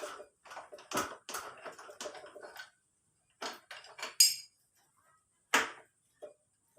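Metal engine parts and hand tools clinking and knocking during the teardown of a Honda Vario 150 scooter engine. A quick run of clatter is followed by a pause, then a loud ringing metal clink about four seconds in and another sharp knock a little later.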